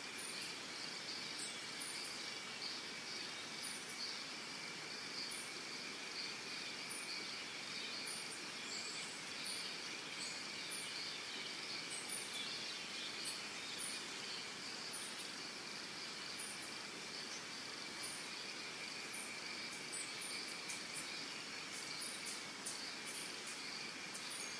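Steady chorus of insects with a constant high trill, and a short, very high chirp repeating every second or so.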